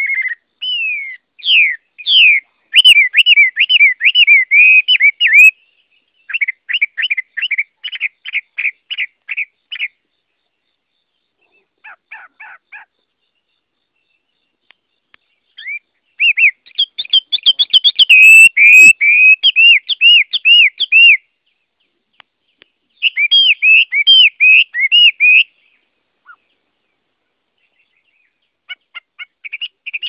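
Chinese hwamei (Garrulax canorus) singing: several loud phrases of fast, repeated whistled notes that sweep up and down, separated by pauses of a few seconds, with one softer short phrase in the middle.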